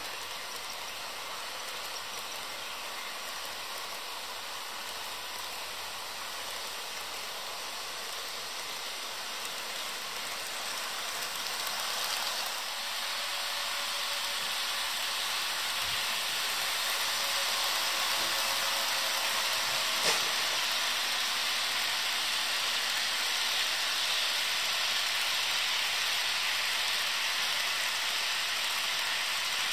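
HO scale model trains running along sectional track: a steady rolling hiss of small wheels on rails and the whir of the locomotive motors. The sound grows louder about halfway through as a freight train passes on the near track, with a single click about two-thirds of the way in.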